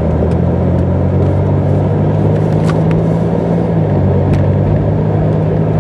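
Car engine and road noise heard inside the cabin while driving: a steady low hum under a constant rush, with the engine note shifting slightly a little before four seconds in.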